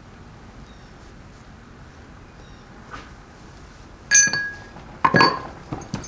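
Metal transfer-case parts clinking and clanking as they are handled on the bench: a sharp, ringing metallic clink about four seconds in, then two heavier clanks and a smaller knock just before the end.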